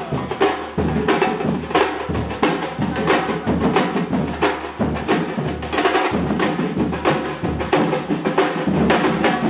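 Drums played by children in a steady rhythm, deep bass-drum strokes recurring under sharper, brighter hits.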